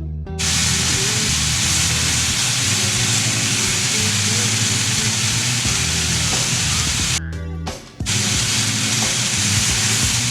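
Thin chicken breasts frying in olive oil in a pan, a steady loud sizzle that stops briefly about seven seconds in and then resumes, over background music with a bass line.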